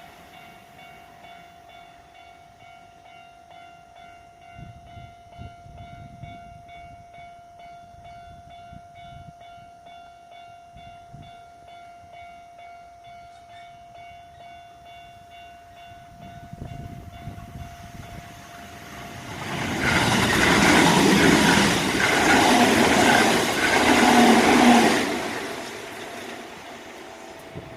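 Japanese railroad crossing warning bell ringing its repeated "kan-kan" dings, as a Kintetsu Kyoto Line train approaches and passes through the crossing. The train grows loud about nineteen seconds in, with a rhythmic clatter, and fades after about six seconds.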